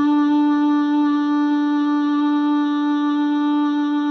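A woman's voice holding one long, steady open-mouthed 'aaa' on a single pitch as she breathes out, as a mouth-and-throat exercise against snoring.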